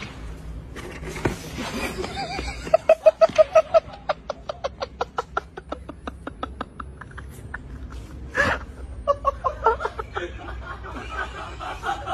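A person laughing in a long, fast run of 'ha-ha' bursts that fades out, followed by a short loud burst and then more laughter and voices, over music.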